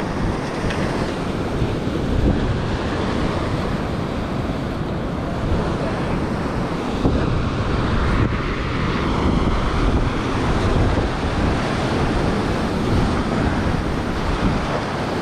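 Surf washing against a rocky lava shoreline, steady and continuous, mixed with wind buffeting the microphone as a low rumble.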